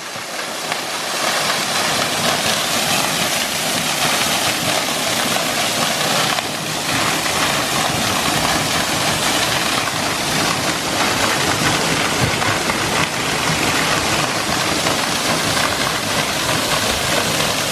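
Big waterfall pouring, a steady loud rush of falling water.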